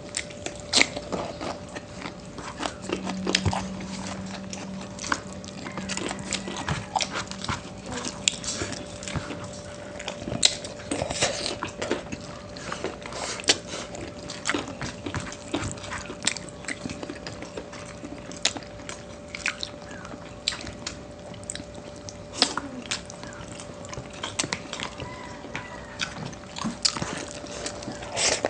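Close-miked mukbang eating sounds: people chewing adobo and rice, with frequent wet smacks and sharp clicks of mouth and utensils.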